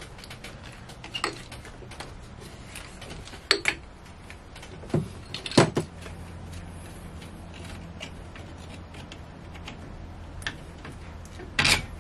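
Scattered metallic clicks and clinks of a ratchet and 12 mm socket loosening the two bolts on a marine diesel's water-pump pulley, the loudest a little past halfway and near the end, over a low steady hum.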